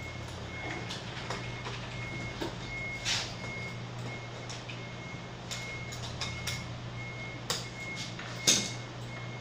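Epson LQ-310 dot matrix printer beeping: a short high beep repeating about twice a second over a steady low hum. There are scattered clicks and knocks, the loudest near the end.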